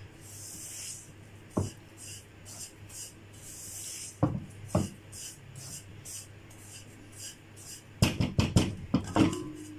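Silicone spatula stirring and scraping semolina as it roasts in ghee in a nonstick pan: a rhythmic gritty scraping, with a few knocks of the spatula against the pan and a quick run of knocks near the end.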